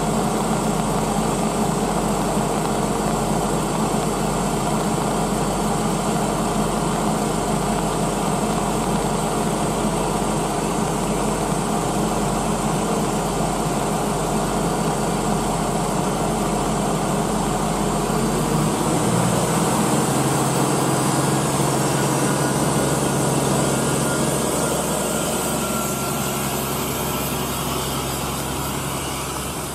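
An engine idling steadily; about nineteen seconds in its note changes to a higher, steadier hum and grows slightly louder.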